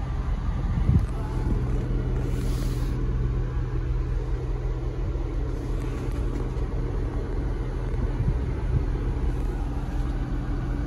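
Ford Bronco's 2.3-litre EcoBoost four-cylinder idling steadily as a low hum, heard from inside the cabin, with a short thump about a second in.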